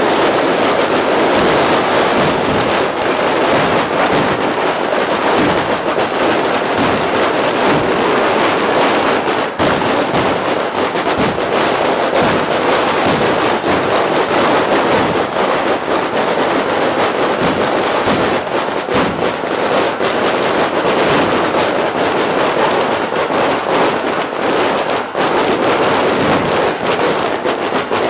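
Fireworks and firecrackers going off without a break: a loud, dense crackle of many small bangs.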